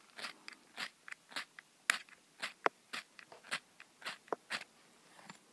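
A metal striker scraping down a fire-starting rod into a tinder bundle. It makes about a dozen short, sharp scrapes, roughly two a second, that stop about four and a half seconds in.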